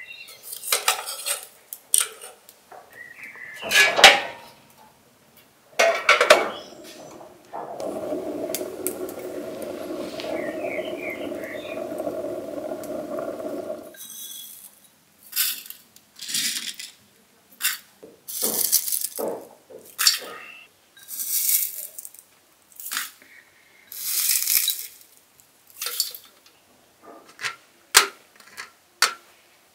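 Crockery and metal tableware being handled and set down: a string of separate clinks and knocks. One steady, even sound lasts about six seconds partway through.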